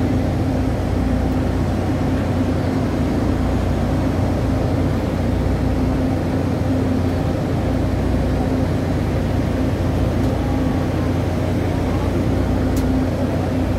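Steady low rumble with a constant hum of an idling diesel train engine.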